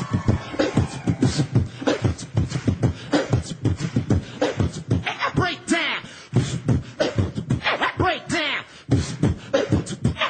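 Human beatbox into a microphone: a fast, dense rhythm of deep vocal thumps and sharp clicks, with arching vocal pitch glides woven in during the second half.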